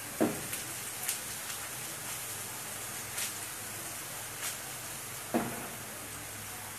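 Sliced onions and spices sizzling steadily in oil in a frying pan over a gas flame, with scattered small crackles. The pan knocks against the stove grate twice as it is lifted and shaken, once just after the start and again about five seconds in.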